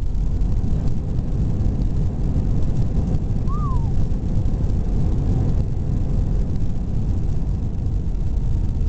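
Inside the cabin of an Airbus A320 rolling along the runway after landing: a steady low rumble from the wheels and engines, with a faint steady hum. A brief faint chirp, rising then falling, comes about three and a half seconds in.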